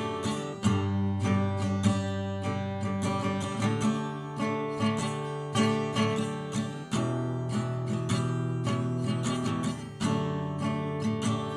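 A guitar being played casually, chords and notes struck in quick succession, recorded through a Maono AU-HD300T cardioid dynamic microphone.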